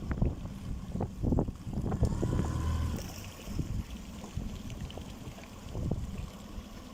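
Small boat's motor running at a gentle cruising speed, with water swishing past and wind gusting on the microphone.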